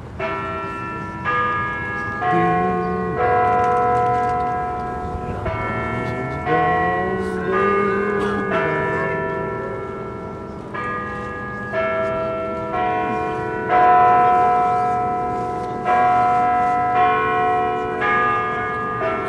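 A set of tuned bells, like a carillon, playing a slow tune. Struck notes and chords sound about once a second, each ringing on and fading under the next.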